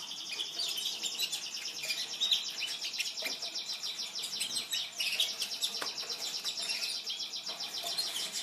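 Many small pet birds chirping and chattering at once, a dense, continuous stream of quick high chirps.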